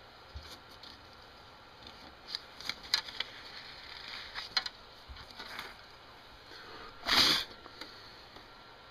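Scattered light clicks and rustles of small objects being handled, then one loud, short puff of breath-like noise about seven seconds in.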